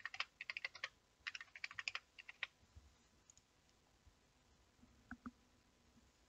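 Fast typing on a computer keyboard in quick runs of keystrokes that stop about two and a half seconds in, followed by two single clicks about five seconds in.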